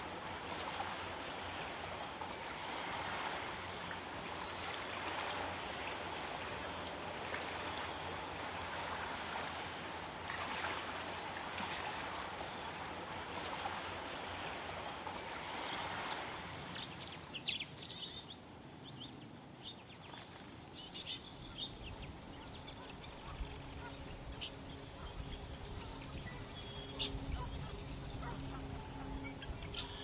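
Outdoor ambience: a steady rushing hiss that swells and eases for a little over half the time, then falls away, leaving scattered short, high bird chirps over a low rumble and a faint steady hum.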